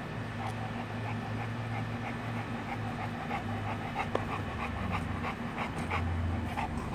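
A dog panting hard and fast after running around the yard, short rhythmic breaths about three a second.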